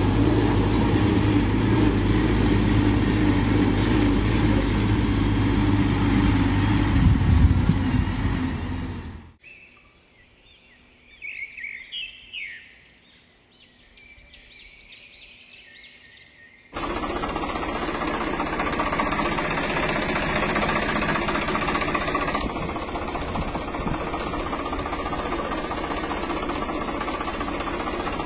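An engine running steadily, cut off abruptly about nine seconds in. Faint bird chirps follow for several seconds. Then a steady rushing noise begins suddenly, about seventeen seconds in.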